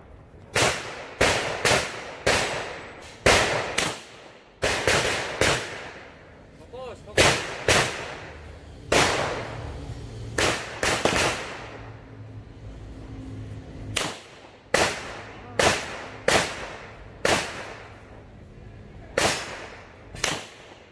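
9mm pistol shots fired one after another at an uneven pace, often in quick pairs or threes, each with a short echo; roughly two dozen shots in all.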